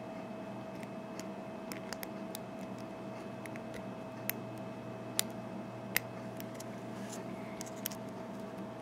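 Light, irregular metallic clicks and ticks of a lock pick and tension tool working the pin stacks in an American 5200 series padlock's bump-stop cylinder. Three sharper clicks come between about four and six seconds in.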